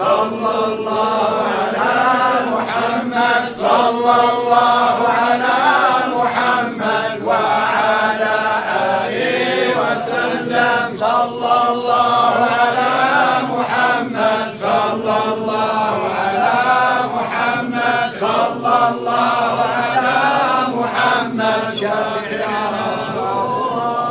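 A group of men chanting a Sufi devotional chant together in unison, continuous and without a pause.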